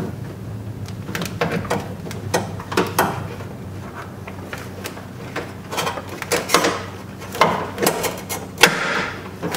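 Irregular metal clicks, knocks and scrapes as a power window regulator and its motor are worked around inside a car's rear door to line up the regulator's two top mounting studs with their holes, with rustling of the plastic door sheet near the end.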